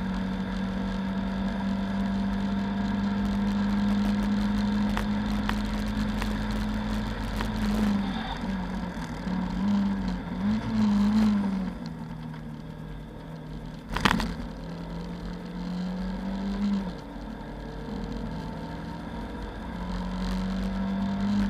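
Lada 2109 race car's four-cylinder engine heard from inside the stripped cabin: held steady at high revs, then rising and falling as the driver lifts and shifts, settling lower, and climbing again near the end. One sharp, loud knock sounds about two-thirds of the way through.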